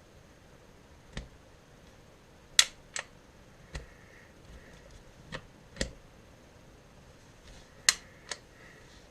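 Sharp mechanical clicks from a Canik TP9SA pistol being worked by hand to take it down: about eight separate clicks, the loudest coming in two quick pairs.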